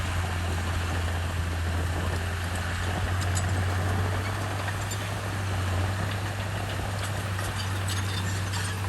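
Komatsu bulldozer's diesel engine running steadily with a deep, even drone, with a few faint sharp clicks and clanks over it.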